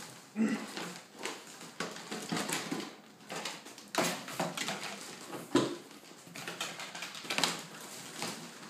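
Plastic packaging crinkling and rustling, with irregular knocks and scrapes against a cardboard box, as a packaged ventriloquist dummy is handled and lifted out. The sharpest knock comes about halfway through.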